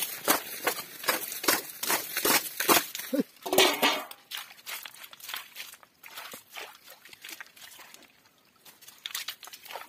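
Close rustling and crackling from hands and feet moving stones, leaf litter and water in a shallow muddy stream, a dense run of sharp crackles for about four seconds, then sparser and quieter.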